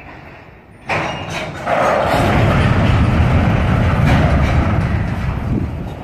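Freight train boxcars rolling slowly past, with a sudden bang about a second in followed by a loud, steady rumbling noise that eases near the end.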